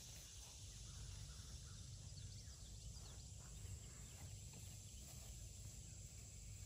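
Faint outdoor ambience: a steady low rumble with scattered faint high chirps.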